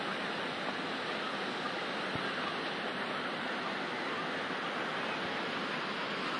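Steady rushing water, an even unbroken wash of noise.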